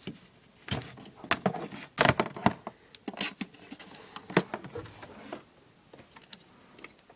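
Hands rummaging through electrical cords and pulling a plug from an outlet: a run of clicks, knocks and rustling over the first three seconds or so, loudest about two seconds in, then fainter scattered clicks.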